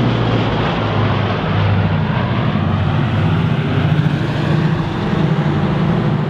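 Boeing B-29 Superfortress flying overhead, its four Wright R-3350 radial piston engines and propellers giving a loud, steady drone.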